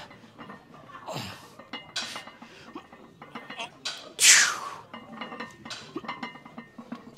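A man's forceful breathing and grunting while squatting a heavy barbell: a short falling grunt about a second in and a loud hissing exhale about four seconds in, with light metallic clinks in between.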